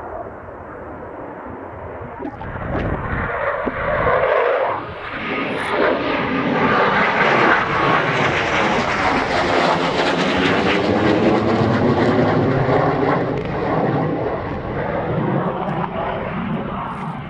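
A Eurofighter Typhoon's twin EJ200 jet engines as the fighter passes low overhead. The rushing jet noise builds from about two seconds in, peaks around the middle with a sweeping, phasing quality, then fades away near the end.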